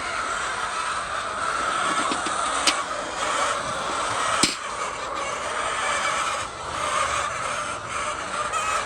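A flock of laying hens clucking and chattering together in a dense, continuous din, with two sharp clicks a little under three seconds in and about four and a half seconds in.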